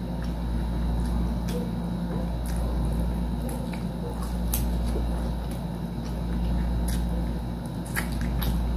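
Close-miked biting and chewing of soy garlic fried chicken: scattered faint wet clicks and crunches over a steady low background hum.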